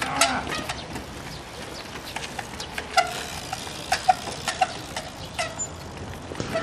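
Trials bicycle hopping on its back wheel on a wooden platform: a series of irregular sharp knocks and clicks as the tyres land on the planks, some in quick pairs.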